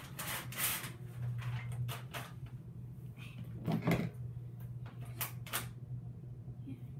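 Freezer paper being pulled from its box and unrolled: a run of short paper rustles and crinkles, with one louder knock about four seconds in.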